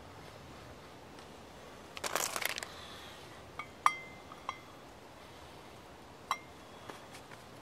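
A small steel pot clinking against the metal nails it rests on as it is set over the burner: several sharp metallic clinks with a short ring, the loudest about four seconds in and another just past six seconds. A brief rustle comes about two seconds in.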